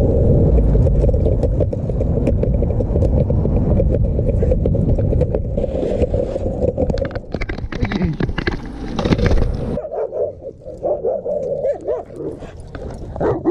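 Longboard wheels rolling on pavement: a loud steady rumble with many sharp clicks. About ten seconds in the rolling stops and a dog whines and yips.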